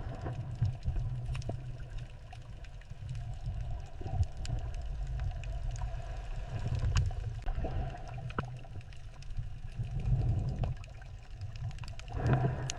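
Moving water with a steady low rumble that swells and eases, and scattered sharp clicks throughout, with a short louder surge near the end.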